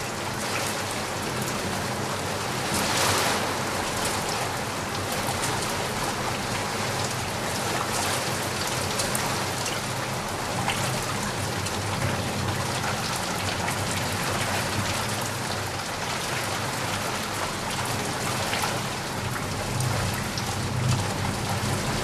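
Steady rain falling and pattering on surfaces, with a brief heavier swell about three seconds in.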